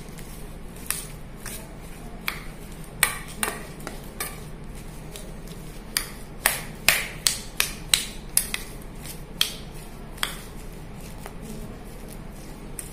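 Steel spoon clinking and scraping against a stainless steel bowl while mashed potato stuffing with onion and coriander is stirred and mixed. The clinks come irregularly, thickest in the middle.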